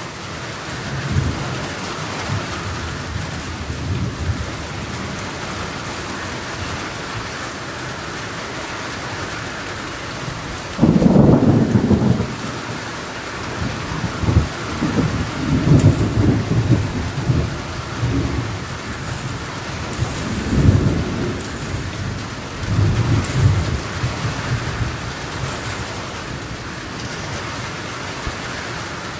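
Thunderstorm: steady rain falling on the trees, with thunder breaking suddenly and loudly about eleven seconds in, then rolling rumbles that come and go for the next dozen seconds.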